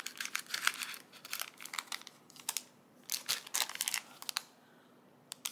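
Small plastic bags of diamond-painting drills crinkling and crackling as they are handled, in quick irregular crackles that stop about four seconds in, with one more crackle near the end.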